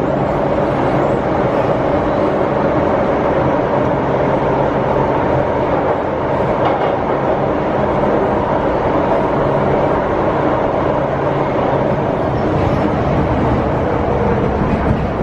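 MTR Tsuen Wan Line electric train running underground between stations, a steady loud rumble of wheels and motors with a faint steady whine.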